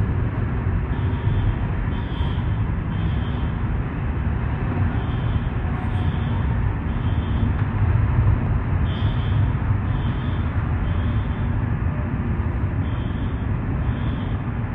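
A fire alarm sounding faintly in the temporal-three evacuation pattern: three short high beeps, a pause, repeating, under a loud, steady low rumble.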